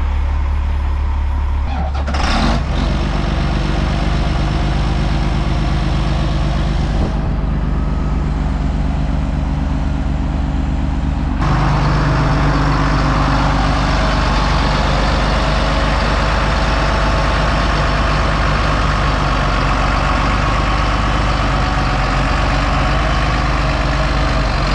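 Heavy diesel engines running steadily: the semi truck idling, with a louder, deeper engine note from about eleven seconds in as the John Deere 8110 tractor is run and driven off the lowboy trailer. A brief sharp noise comes about two seconds in.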